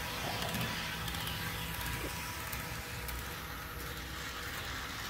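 HO scale Bachmann Spectrum Canadian National doodlebug model running on sectional track: a quiet, steady hum of its small electric motor and wheels on the rails.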